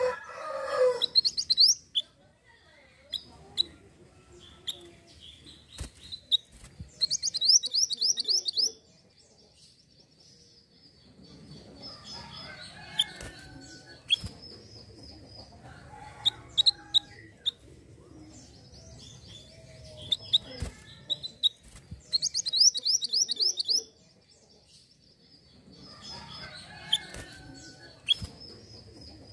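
Minivet (mantenan) singing: three bursts of fast repeated high, downslurred notes, each lasting a second or two, with scattered single chirps between them. A rooster's crow is ending at the very start.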